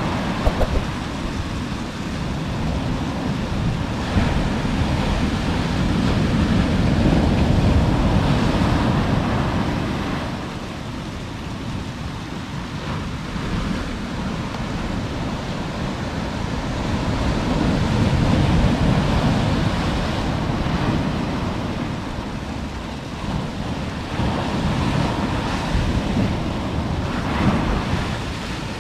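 Ocean surf breaking on a sandy beach and washing back, the rushing noise swelling and easing every several seconds, with wind rumbling on the microphone.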